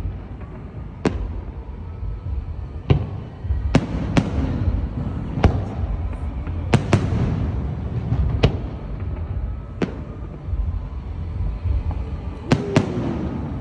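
Aerial firework shells bursting in a display: sharp bangs every second or two, some in quick pairs, over a continuous low rumble.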